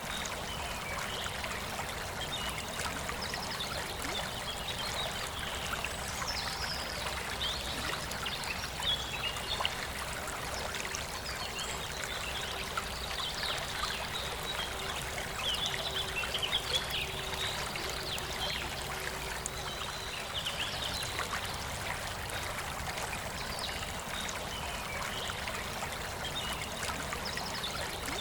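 A forest stream running steadily, with birds chirping and singing over it, busiest through the middle.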